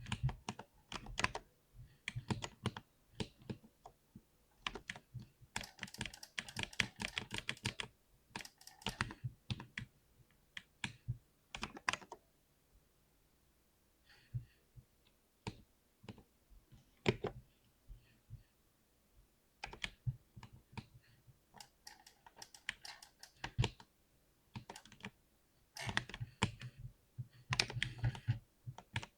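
Typing on a 60% keyboard: runs of key clicks, fast and dense in places, with a sparser stretch of only a few keystrokes in the middle.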